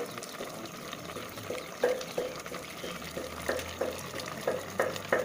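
Ladle stirring a bubbling curry of taro leaves in an aluminium pot. A soft simmering hiss comes first, then from about two seconds in there are repeated stirring strokes, roughly three a second, as the ladle sloshes through the liquid and knocks the pot.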